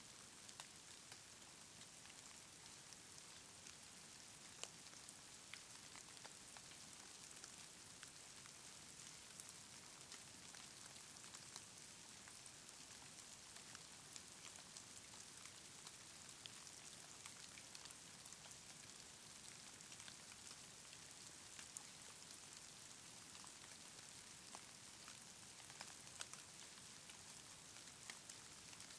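Faint steady hiss of falling snow, scattered with small irregular ticks of flakes and ice landing.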